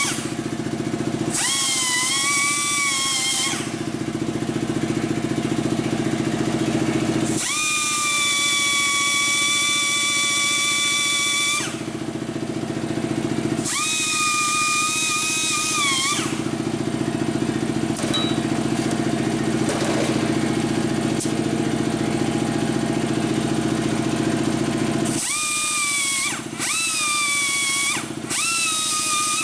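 Plasma cutter cutting metal in several separate passes: each pass is a hiss with a high, slightly wavering whine that starts and stops abruptly, lasting one to four seconds. A steady low hum runs underneath throughout.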